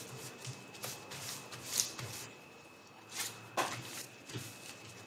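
Dried beancurd sheet and baking paper rustling and crinkling under hands that fold and press the sheet flat, in a string of brief crackles.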